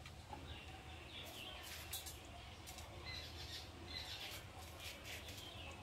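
Faint birds chirping over and over, short falling calls that keep coming through the whole stretch.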